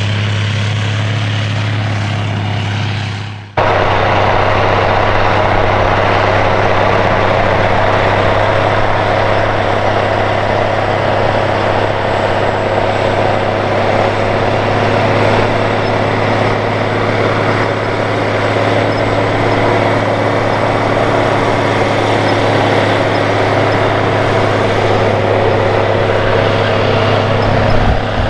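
Steiger Cougar ST280 tractor's diesel engine running steadily under load while pulling a mulch finisher through the soil. About three and a half seconds in, the sound dips briefly and its hiss changes, then the same steady engine note carries on.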